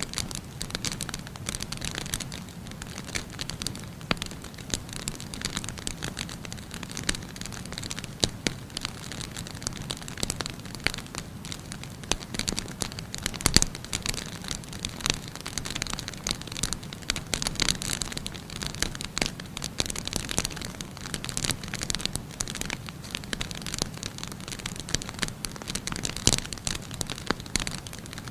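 Burning firewood crackling and popping constantly over a steady low background, with one louder pop about halfway through.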